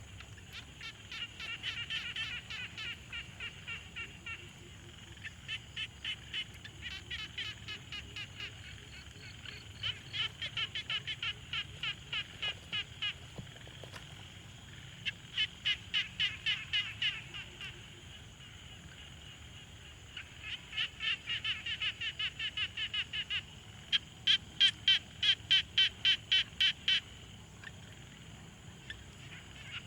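Frogs calling at a pond: bouts of quick, pulsed croaks, several pulses a second, each bout lasting one to three seconds and answering the last. The loudest bout comes near the end.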